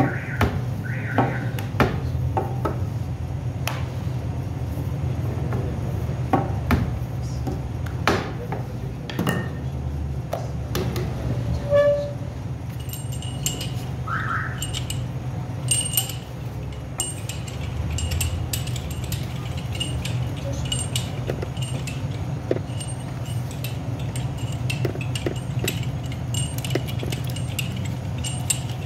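Scattered light clinks and knocks, several every few seconds, over a steady low hum.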